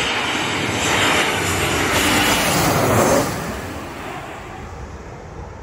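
Twin-engine jet airliner passing low overhead on landing approach: a loud engine rush builds to a peak about three seconds in, its pitch sliding down as the aircraft goes over, then fades as it moves away toward the runway.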